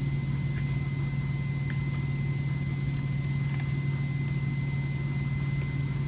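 Steady low machine hum with a faint, thin high whine over it, likely the shop's air-conditioning unit running. A few faint light clicks come from the test leads and overload being handled, about half a second and nearly two seconds in.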